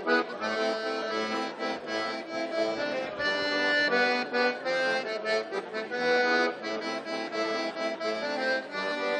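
Button accordion playing a traditional tune, with a steady flow of quickly changing notes and no pause.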